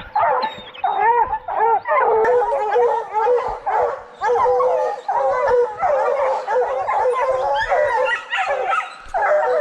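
A pack of bear hounds baying and howling at a bear they have treed, many voices overlapping with hardly a break.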